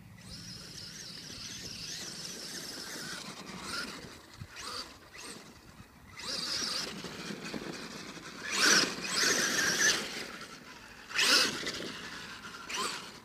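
Traxxas E-Revo brushless RC truck driving on sand: a high electric motor whine, then several loud rushes of motor and tyre noise as it accelerates and passes close, the loudest about nine and eleven seconds in.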